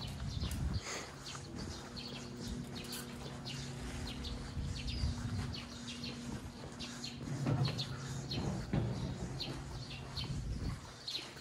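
Small birds chirping in short, scattered calls, with the footsteps of someone walking on the temple paths. A low steady hum runs underneath.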